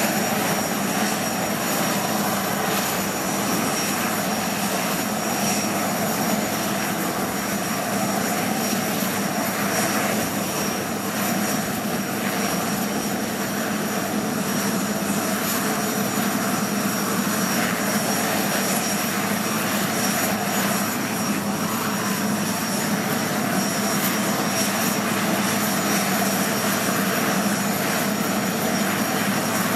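Aérospatiale Puma HC.1 helicopter running on the ground before take-off, its twin Turbomeca Turmo turboshaft engines and turning main rotor giving a steady, loud noise with a high turbine whine over a low hum.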